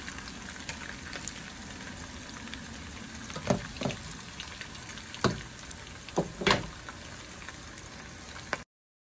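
Onions deep-frying in a pot of hot oil, a steady sizzle, with a utensil knocking against the metal pot several times as they are stirred. The sound cuts off suddenly near the end.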